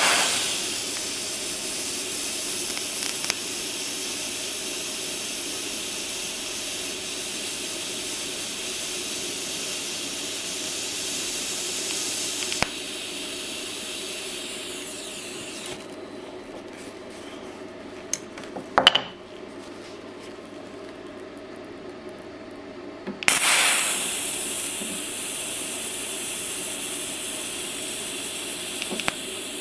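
TIG welding arc hissing steadily on steel, from a Stahlwerk TIG welder. The arc stops about halfway through. A single sharp click comes in the pause, and the arc strikes again with a sudden crack about seven seconds later, hissing on to near the end.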